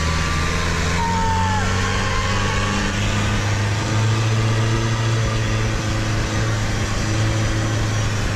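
A boat's engine running steadily under way, a low, even hum whose pitch rises slightly about three to four seconds in.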